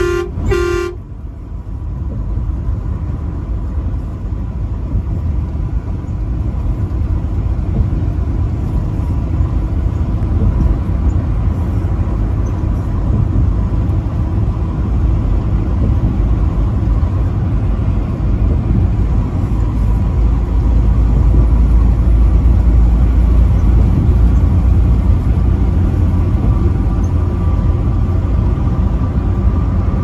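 Truck horn sounding two short blasts right at the start, then the steady low rumble of the truck's engine and tyres on the highway, heard from inside the cab.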